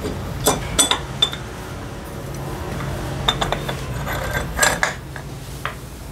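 Metal parts and tools clinking and knocking against each other in scattered sharp clinks, in small clusters, over a steady low hum.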